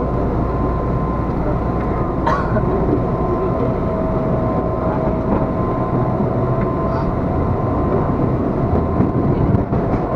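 Jakarta KRL Commuter Line electric train running: a steady rumble of wheels and rails with a faint, even electric hum, and a single sharp click about two seconds in.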